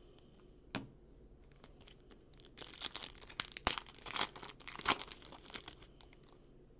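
Foil wrapper of a trading-card pack crinkling and tearing with cards rustling in the hands as the pack is opened. A single snap comes under a second in, then a run of sharp crackles through the middle seconds.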